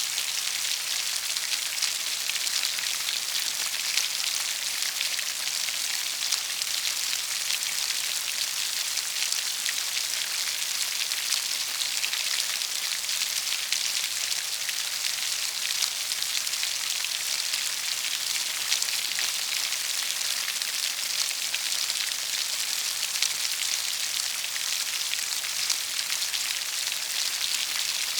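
Steady rain falling, an even patter of many small drops that holds at one level throughout.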